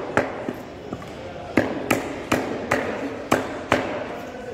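Butcher's cleaver chopping chicken on a wooden chopping block: a string of sharp chops, sparse with a short lull about a second in, then about two or three a second.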